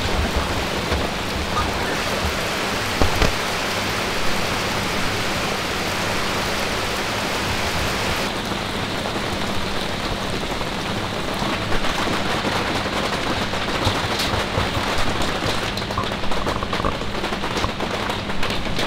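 Steady rain falling on a surface, an even hiss with a few louder taps. About eight seconds in the sound turns duller as the highest part of the hiss drops away.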